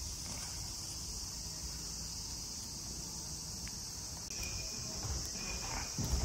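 A steady, high-pitched insect chorus that gets louder from about four seconds in. A few low thumps come near the end, footsteps on the wooden walkway.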